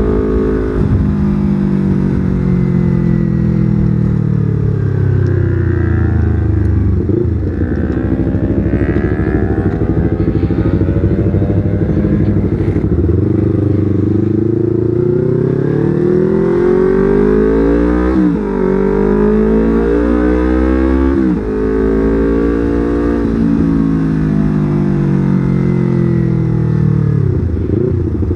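2019 Yamaha R25's 250 cc parallel-twin engine under way. The revs ease off, then climb through the gears, with sharp drops in pitch at the upshifts, then fall away and rise again.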